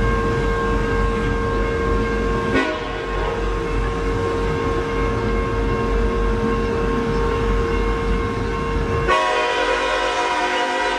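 Train horn sounding one long, steady chord over a low rumble. It changes abruptly about two and a half seconds in and again near the end, where the chord grows fuller and the rumble falls away.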